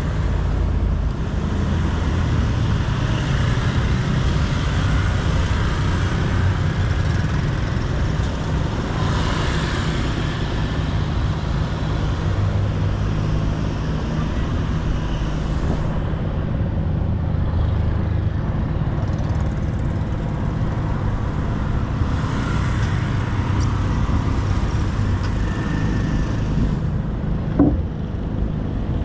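Road traffic on a bridge: cars, pickup trucks and motorbikes moving past, a steady low rumble with a short knock near the end.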